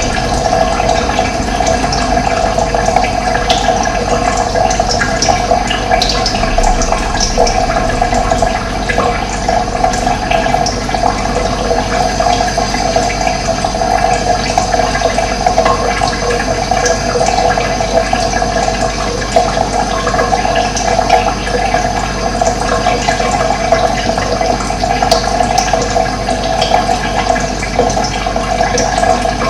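Steady rush of running water, with short bird chirps scattered over it.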